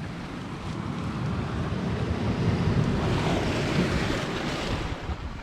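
Sea waves washing on the shore, mixed with wind rumbling on the microphone; the surf swells over a few seconds and eases off near the end.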